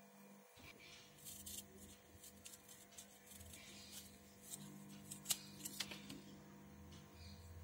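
Faint rustling of wool yarn and a small cardboard pom-pom form being handled, with a few short sharp clicks or snips, the loudest a little past the middle.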